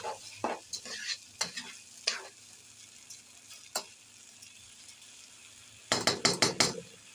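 A spoon scraping and stirring rice in a pan as it fries in sauce, over a faint steady sizzle, with a quick run of louder scrapes about six seconds in.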